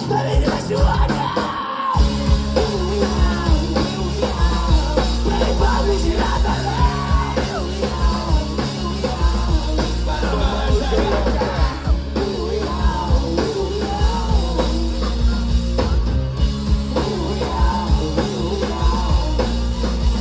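Rock band playing a song live: sung vocals over guitars, a heavy bass line and a drum kit.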